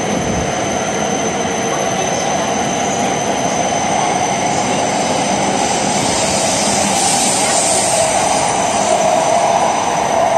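H5 series Shinkansen cars pulling out of the station and sliding past at close range: a steady rush of wheels and running gear, with a high hiss that swells about six to eight seconds in.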